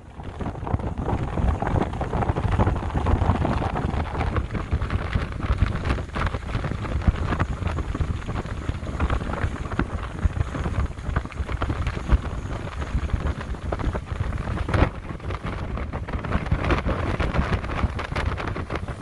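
Strong, gusty wind buffeting the microphone: a rumbling low roar that rises and falls.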